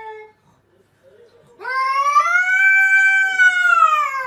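A longhaired cat's long drawn-out warning yowl at its own reflection in a mirror. It rises in pitch, holds for about three seconds and sags slightly at the end. It comes after the end of an earlier call and a short pause.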